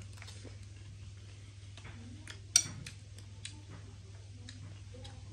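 Eating sounds at a table: scattered small clicks and taps of mouth and utensils, with one sharp click about two and a half seconds in, over a steady low hum.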